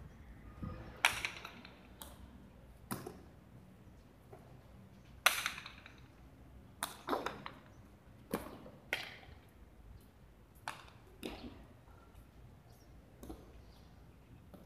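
Hard jai alai ball striking the fronton's front wall and floor during a rally: a series of sharp, echoing cracks at uneven intervals, the loudest about five seconds in.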